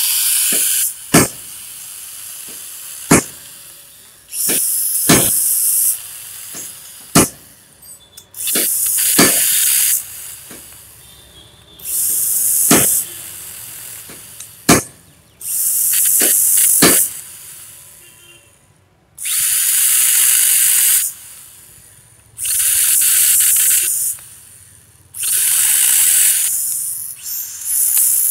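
Stihl GTA 26 battery mini chainsaw running in about eight short bursts of one to two seconds each as its chain cuts a green stalk into pieces. Sharp knocks fall between the cuts.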